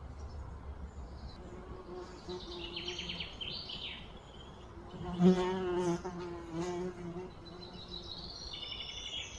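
A flying insect buzzing close by, its drone wavering as it moves and loudest about five seconds in, while small birds chirp a few short phrases.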